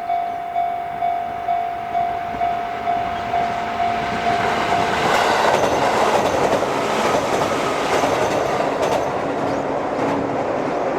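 Japanese railway level-crossing alarm ringing its electronic bell about twice a second, then a train passing over the crossing from about five seconds in, its wheels clattering on the rails and the train noise covering the bell.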